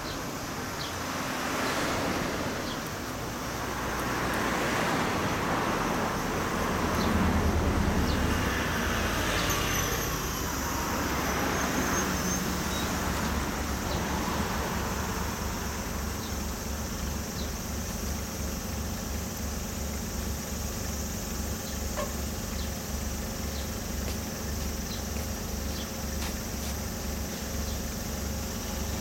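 Motorcycle engine running: louder, rising and falling revs over roughly the first dozen seconds, then settling into a steady idle with an even low throb.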